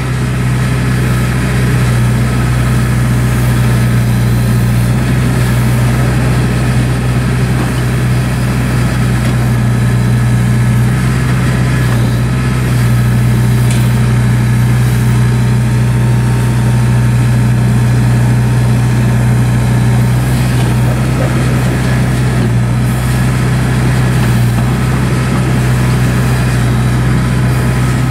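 2007 John Deere 310J backhoe loader's four-cylinder diesel engine running at a steady idle, with an even low drone that does not change in pitch or level.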